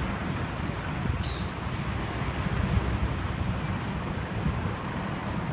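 Wind buffeting the microphone: a dense, fluttering low rumble over a steady hiss.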